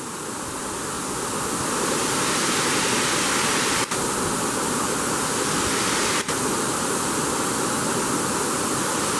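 Steady rush of a waterfall in high flow, growing louder over the first couple of seconds. It cuts out for an instant twice.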